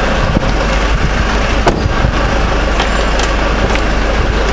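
Van engine idling close by, a steady low rumble, with a few sharp clicks; the loudest click comes about one and a half seconds in.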